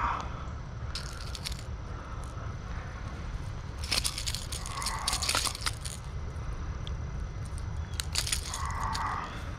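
Steady low rumble of wind on the microphone, with three short spells of crackling and rustling: about a second in, around four to five seconds in, and around eight seconds in.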